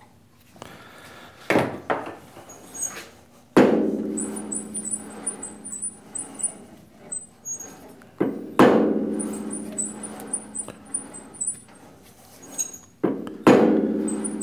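A hammer tapping the workpiece in a lathe's four-jaw chuck to nudge it true while it is dialed in with an indicator. Three hard taps leave the chuck and part ringing for a few seconds each, with lighter knocks in between.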